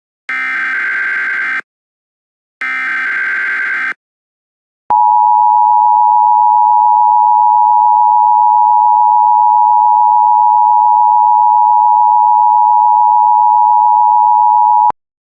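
Emergency Alert System tones: two bursts of digital SAME header data, each a little over a second, then after a short gap a loud, steady two-tone attention signal lasting about ten seconds that cuts off sharply. The sequence announces the start of an emergency alert message.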